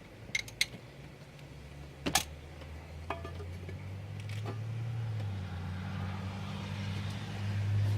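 A few sharp metal clicks and knocks from parts being handled, the loudest about two seconds in, over a steady low hum that grows louder towards the end.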